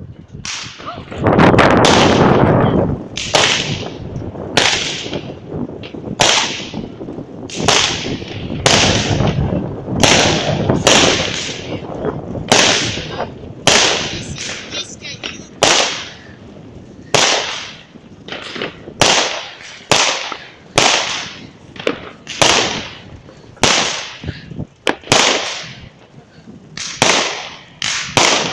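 A consumer firework battery firing shot after shot. A loud rushing launch about a second in is followed by about 25 sharp bangs, roughly one a second, each with a short fading echo.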